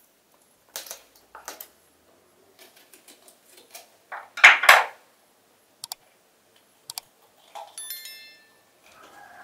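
Small kitchen knife cutting and coring green bell peppers: separate crisp crunches and snaps of the pepper flesh, the loudest pair about halfway through, with a few light clicks between.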